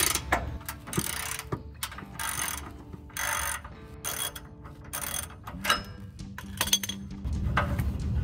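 Half-inch drive ratchet wrench clicking in repeated short strokes, a burst roughly every second, as the exhaust's mid-pipe connector bolts are loosened.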